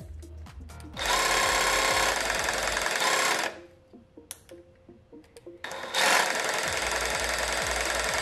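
Dewalt DCS334B cordless jigsaw running with its blade stroking in open air, not cutting. It starts about a second in and stops at about three and a half seconds. A few sharp clicks follow as the orbital-action selector is moved to the next setting, and the saw starts again at about six seconds and runs on.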